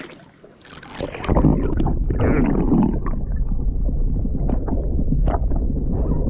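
A camera is dipped from a canoe under the sea surface. About a second in, the water sound turns into the muffled low rumble of a submerged microphone, with scattered clicks and crackles.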